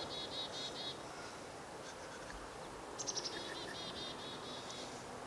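A small songbird singing two quick, high trills of repeated chirp notes, one at the start and another about three seconds in, over faint outdoor background hiss.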